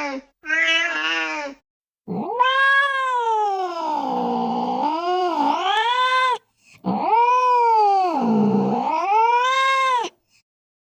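Domestic cat yowling: a short wavering meow, then two long, drawn-out wails whose pitch sags low in the middle and climbs again.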